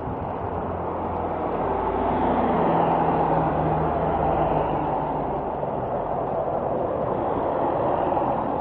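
Street traffic noise: a motor vehicle running past, with a low engine hum swelling to its loudest about three seconds in and a steady rush of road noise.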